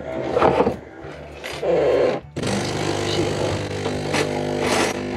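A few handling knocks, then about two and a half seconds in a coffee machine starts with a steady buzzing hum.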